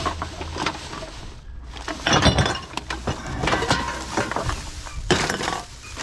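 Aluminium drink cans and glass and plastic bottles clinking and clattering in a bin as a gloved hand rummages through them. Louder clatters come about two seconds in and again about five seconds in.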